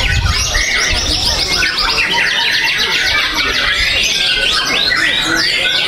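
White-rumped shama singing a loud, fast, varied song of rapid trills and chattering notes, with other birdsong overlapping.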